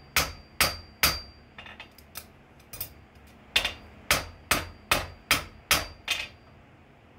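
Blacksmith's hand hammer striking hot steel held in tongs on an anvil, forging the ring end of a bottle opener. About two blows a second: three blows, a few lighter taps and a short pause, then a run of seven blows that stops about six seconds in.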